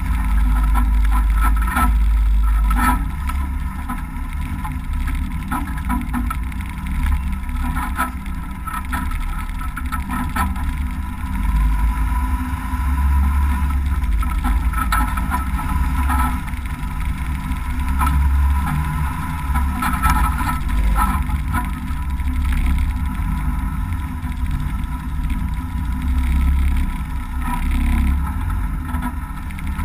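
M923A2 5-ton 6x6 military truck driving off-road, its Cummins turbo-diesel inline-six running steadily under load, the sound swelling and easing, with scattered knocks from the truck over rough dirt.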